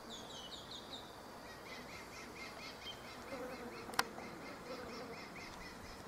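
Electronic bird scarer playing recorded bird distress calls through a speaker, heard faintly: a fast run of repeated chirps, about five a second, that shifts to a lower series partway through. A sharp click comes about four seconds in.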